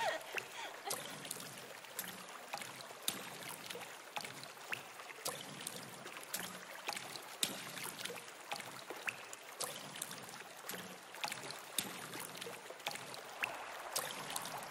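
Stream water trickling and splashing over rocks, fairly faint, with many small drips and splashes scattered through it.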